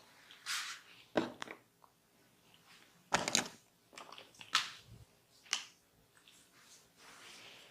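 Crunchy scraping and rubbing sounds close to the microphone, coming in short irregular bursts, with the loudest cluster a little after three seconds in.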